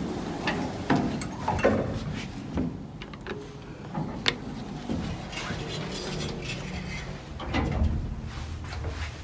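1990s Hitachi elevator's sliding doors and door mechanism clattering, a series of sharp clicks and knocks over a steady low hum. A single sharp click comes about four seconds in, as the door-close button is pressed.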